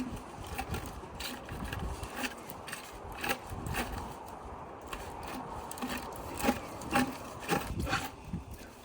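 Large heat-shrink tube being slid along an underground electrical service cable: plastic rubbing and scraping over the cable jacket, with irregular light clicks and knocks as it is handled, a few louder knocks around two thirds of the way through.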